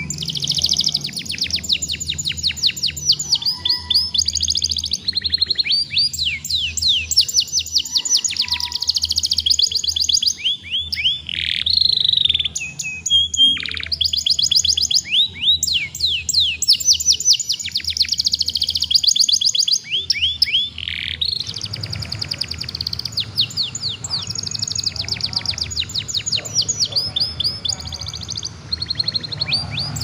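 Young domestic canary in full song: long runs of fast trilled notes, each run a rapid series of down-sweeping whistles. The song breaks off briefly around eleven and twenty-one seconds in.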